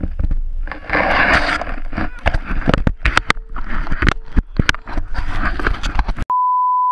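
Wind rush and scraping on a helmet-pole GoPro's own microphone in deep powder snow, broken by many sharp knocks as snow and handling hit the camera housing. About six seconds in, it cuts off into a steady beep lasting under a second.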